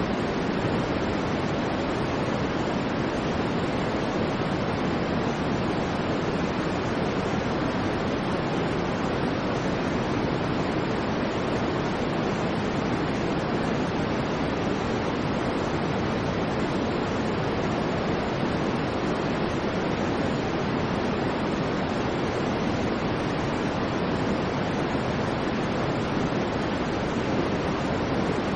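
Continuous white noise for sleep: a steady, even hiss with no rise and fall, fuller and deeper in the lower range than in the treble.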